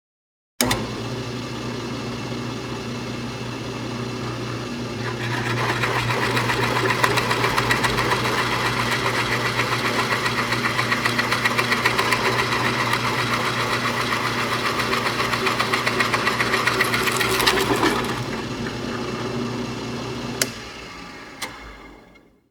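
Electric hammer drill starting abruptly with its motor running steadily, then louder with a fast hammering pulse for about thirteen seconds. It drops back to the motor alone, a sharp click comes near the end, and it winds down to a stop.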